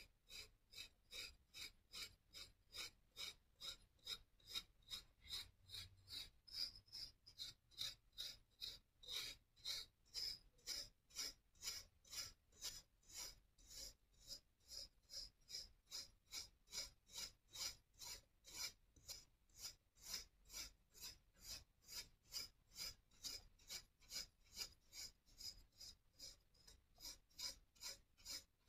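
A fork scraping through packed kinetic sand in a steady rhythm of about two and a half strokes a second, each stroke a quiet, gritty rasp.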